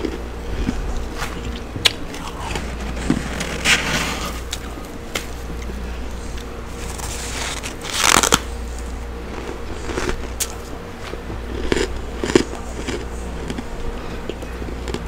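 Mouthfuls of soft freezer frost bitten and crunched close to a microphone: scattered crisp crackles, with the loudest bite about eight seconds in, over a steady low hum.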